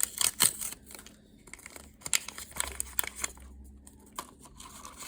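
Small plastic wrapper crinkling and tearing in the hands, a run of sharp crackles and rustles, heaviest near the start and again around the middle, as a miniature item is unwrapped from a toy capsule.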